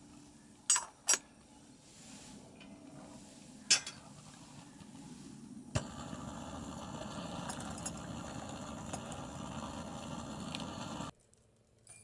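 Metal tea strainer and teaspoon clinking against a glass tea mug: a few sharp clinks in the first four seconds and another near the middle. A steady background noise with a few faint clinks follows and cuts off suddenly near the end.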